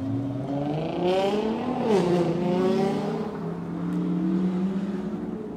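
Lamborghini Gallardo's V10 engine accelerating away, its pitch climbing, then falling sharply just before two seconds in and climbing again more slowly as it pulls on.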